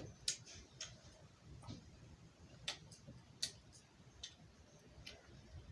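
Faint, irregular small clicks and taps from handling a plastic fashion doll, about seven over a few seconds.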